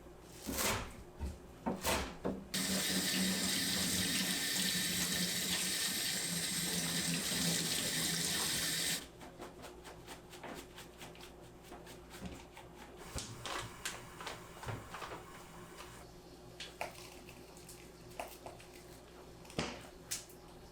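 Kitchen tap running into a sink for about six seconds, then shut off abruptly. A few knocks come just before it, and scattered small clicks and clatters of kitchen handling follow.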